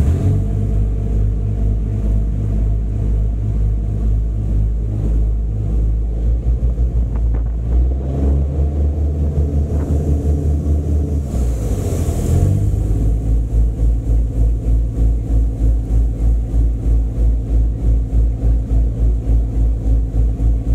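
River boat's engine running with a heavy low drone. Its throb becomes even and regular in the second half, with a brief hiss about twelve seconds in.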